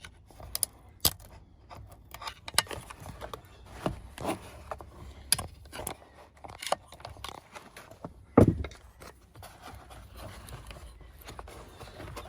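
Scattered small clicks, scrapes and taps of a screwdriver prying at a plastic electrical connector plug, with one louder knock about eight seconds in.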